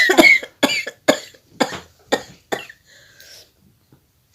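A woman's sneezing fit set off by chili in her nose: a loud first sneeze, then about five short, sharp sneezes about half a second apart, each fainter than the last.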